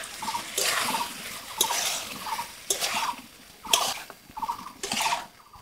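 Metal spatula stirring and scraping soya chunks through thick masala in a kadai, one scrape about every second.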